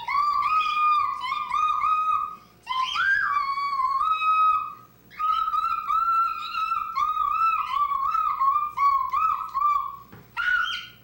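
A person whistling a high tune in short, repeated, wavering notes, breaking off briefly about two, five and ten seconds in.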